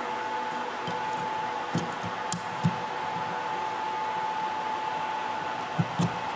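A steady whirring hum, with a few light clicks and knocks from a wiper blade's plastic clip being worked onto the wiper arm, a cluster about two seconds in and two more near the end.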